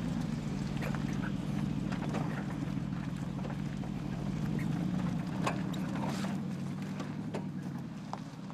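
Mercedes-Benz G 500's 4.0-litre twin-turbo V8 running steadily at low revs as the G-Class crawls over rocks, with scattered crunches and clicks of its tyres on stones and gravel. The sound falls off a little near the end as the vehicle moves away.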